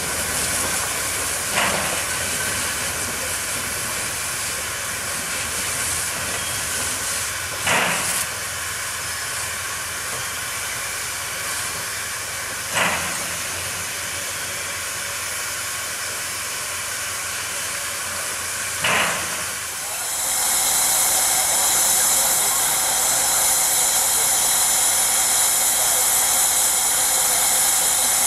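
Shay geared steam locomotive hissing steam while standing, with four short louder puffs spread through the first two-thirds. About two-thirds of the way through, the hiss turns louder and higher as steam vents close by.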